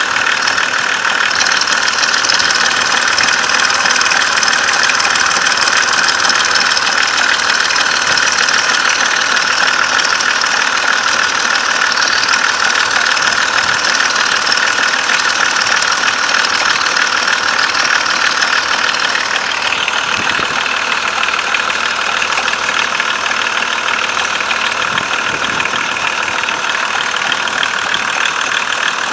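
BMW M51 2.5-litre turbodiesel straight-six running with a rapid, steady knock. It is a knock of unknown cause that appears only once the engine is warm. About two-thirds of the way through, the tone of the running changes.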